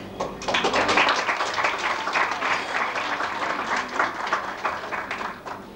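Audience clapping, starting about half a second in and dying away near the end.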